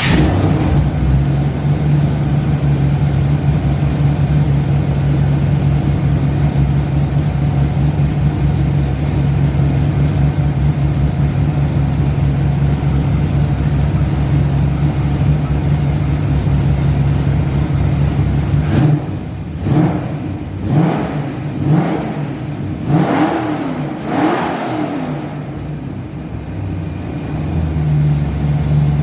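Freshly rebuilt car engine on its first start, catching and running at a steady idle. About two-thirds of the way through it is blipped several times in quick succession, each rev rising and falling, then drops back to idle.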